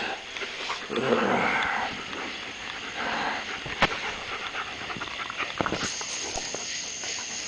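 German Shepherds play-wrestling at close range: dog noises and scuffling in irregular bursts, with a sharp click just before four seconds in.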